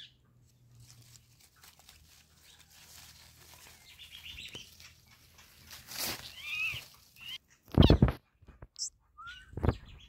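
Rose-ringed (ringneck) parakeet giving a few short chirps a little before the middle, followed near the end by a few loud, brief rustling bursts close to the microphone.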